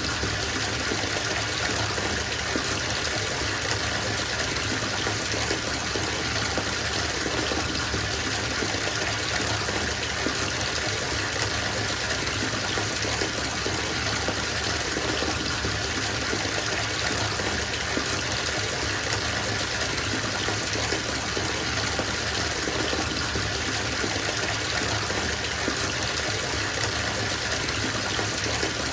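Water running from a bathtub faucet into a filling tub: a steady, even gush that holds unchanged throughout.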